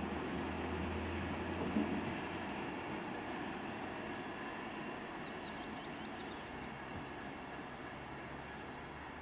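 A train running past with a steady rumble and low hum that slowly fades away.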